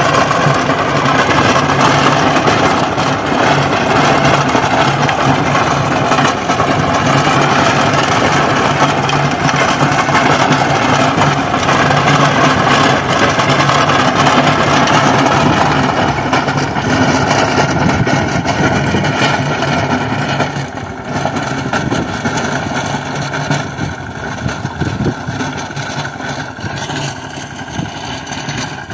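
Mahindra Yuvraj mini tractor's single-cylinder diesel engine running steadily under load while driving a rotavator through dry soil. It grows fainter from about two-thirds of the way through as the tractor moves away.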